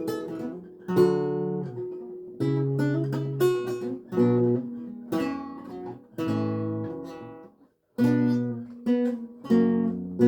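7-course Renaissance lute, tuned to A=415 Hz, played solo: plucked chords and single notes, each ringing and dying away. A brief silent pause comes about eight seconds in, then the playing resumes.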